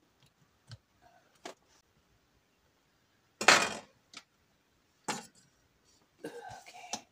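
Glass lid being put back on a Crock-Pot slow cooker and the pot handled: a few light clicks and knocks, with one louder clatter about three and a half seconds in and more handling clatter near the end.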